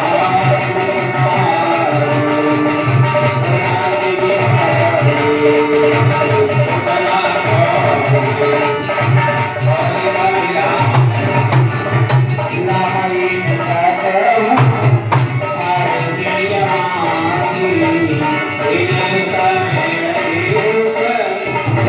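Music: a wavering melody line over a low pulsing beat and jingling hand percussion.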